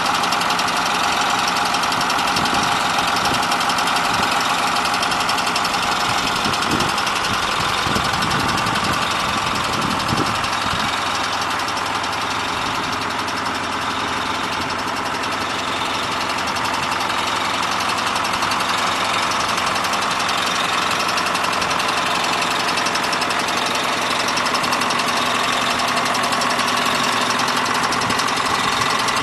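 John Deere 2955 tractor's six-cylinder diesel engine running steadily.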